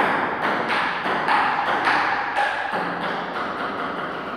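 Table-tennis ball bouncing: a series of light taps, about three a second, over a dense rushing background noise.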